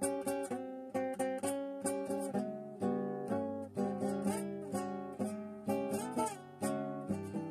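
Acoustic guitar playing a quick instrumental line of plucked notes and chords, several notes a second, each ringing briefly before the next.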